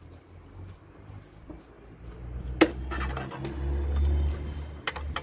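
Toyota Hilux radiator being worked free of its retaining clips and lifted out. A sharp click comes about two and a half seconds in, then a low rumble of handling, and two more clicks near the end.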